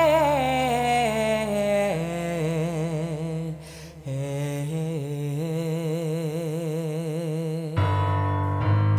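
Live band playing a slow instrumental passage: long held melody tones that slide downward, then waver evenly over a sustained bass note. The sound drops away briefly a little before the middle, and plucked string notes come in near the end.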